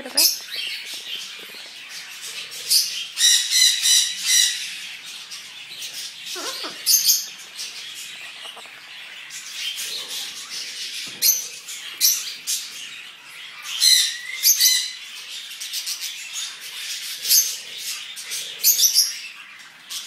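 Pet parrots squawking and chirping, with many short, high-pitched calls coming one after another.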